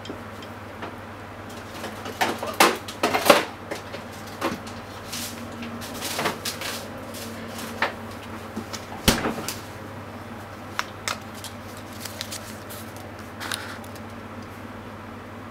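Scattered kitchen handling clicks and knocks, loudest in a cluster a few seconds in and a single sharp knock about halfway through, over a steady low hum.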